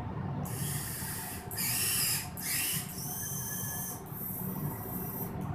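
Electric motors and gearboxes of a modified Huina RC excavator whirring in bursts as the arm and bucket are driven. The loudest bursts come around the two-second mark, followed by a steadier whine.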